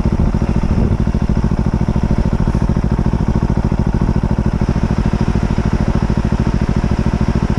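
Motorcycle engine idling steadily with an even, rapid throb, heard from on board the bike.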